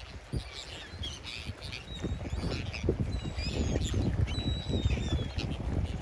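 A flock of gulls calling over one another in many short, overlapping cries, with a few thin falling whistles midway, over a steady low rumble.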